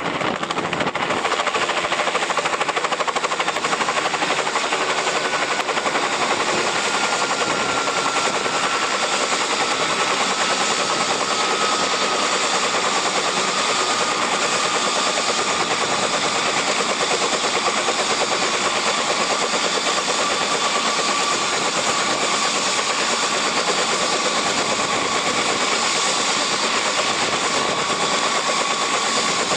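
Bell 206 helicopter running on the ground with its main rotor turning: a steady rapid blade chop over turbine noise, with a high turbine whine that slowly falls in pitch.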